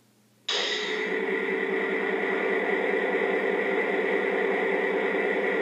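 Model train locomotive's onboard sound system switching on suddenly about half a second in and playing a steady simulated diesel engine idle through its small speaker.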